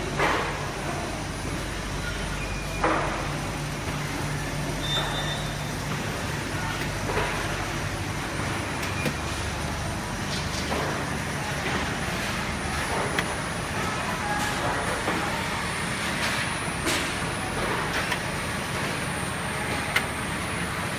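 Industrial tunnel baking oven running: a steady mechanical hum with a few sharp knocks scattered through it.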